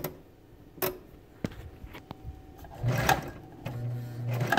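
Brother VX-1120 sewing machine running on its newly replaced drive belt: a couple of sharp clicks, then from about three seconds in the motor and needle mechanism whir in two short spurts with a steady low hum.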